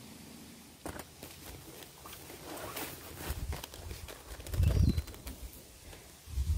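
Rustling and light clicks as a canvas rucksack with a woven basket liner is handled and opened, with a heavy low thump a little past halfway.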